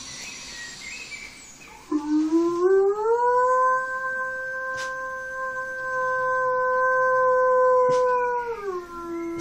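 A standard poodle howling: one long howl that starts about two seconds in, rises in pitch, holds steady, then drops lower near the end and carries on.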